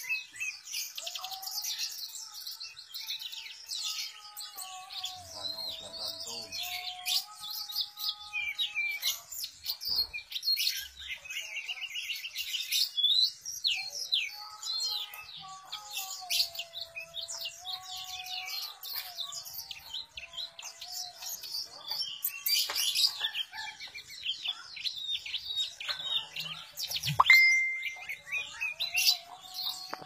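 Enggano white-eye (pleci enggano) singing continuously: a rapid, unbroken stream of high chirps and trills. At times a lower whistled tone that steps up and down in pitch runs beneath it, and a sharp click sounds near the end.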